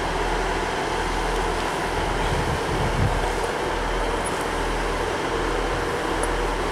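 Northern diesel multiple unit pulling slowly out of the station, its engine running steadily with a low hum, with a brief low thump about three seconds in.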